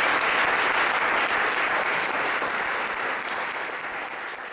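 Audience applauding steadily, slowly dying away near the end.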